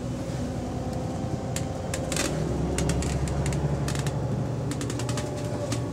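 Inside a moving double-decker bus, heard from the upper deck: a steady low engine and drivetrain drone with a faint humming tone, under repeated sharp rattles and clicks from the bodywork and fittings, thickest a little after two seconds in and again near the end.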